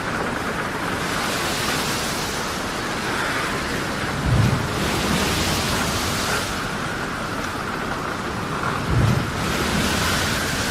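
Storm at sea: a steady rush of wind, rain and waves that swells and ebbs every couple of seconds, with two heavy low thumps about four and nine seconds in.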